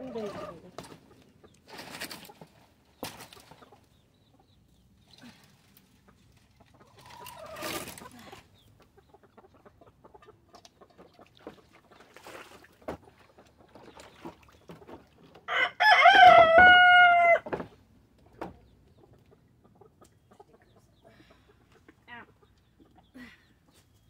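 Rooster crowing once, about two-thirds of the way in, ending on a long, slightly falling note. Quieter clucking and short rustles and knocks come before and after.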